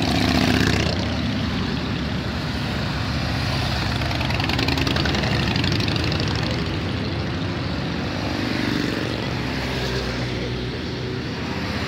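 A procession of motorcycles riding past one after another, their engines rumbling steadily. A cruiser motorcycle passes close in the first second, the loudest moment.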